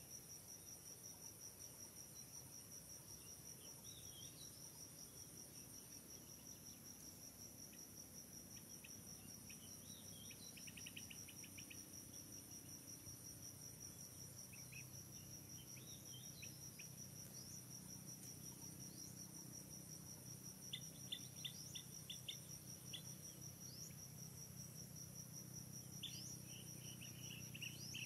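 Insects trilling steadily on one high note, with short bird chirps and quick rattling calls scattered through, more of them near the end.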